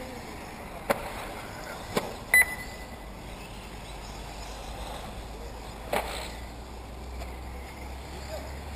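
A short, high electronic beep about two and a half seconds in, the loudest sound, among a few sharp knocks, over a steady outdoor background with a low hum that grows stronger in the second half.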